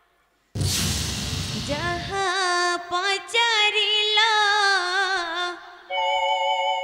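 A song from an Odia gitinatya stage play. A loud percussion crash opens it, then a woman sings a wavering, ornamented melodic line, and a steady held instrumental chord comes in near the end.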